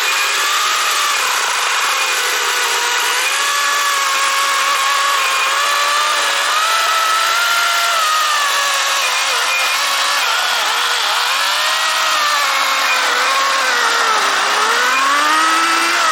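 Wild Badger 40-volt battery chainsaw with a 16-inch bar cutting through a log. It makes a steady motor whine over the chain's cutting noise, and the pitch sags and recovers as the chain takes load, dropping most deeply near the end before rising again.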